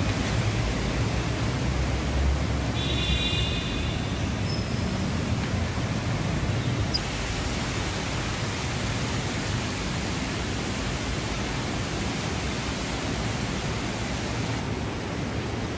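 Steady rushing noise of traffic echoing through a road underpass, with a short vehicle horn about three seconds in.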